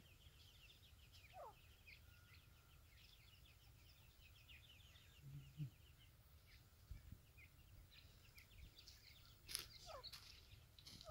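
Faint chirping of grey francolin chicks and adults: many quick high chirps in the first six or seven seconds, with a few peeps that fall in pitch. There is a brief sharp tap about nine and a half seconds in.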